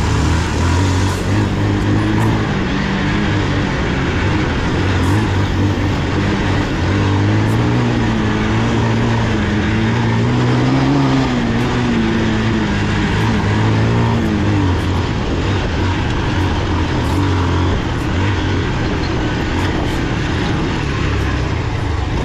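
Bajaj Pulsar 180's single-cylinder engine running as the motorcycle rides along a rough dirt trail, its note rising and falling with the throttle, under steady wind and tyre noise.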